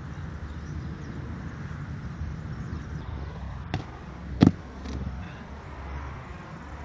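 Two thuds of a body landing on loose sand during a flip: a lighter one a little before four seconds in and a louder one about half a second later, over a steady low rumble.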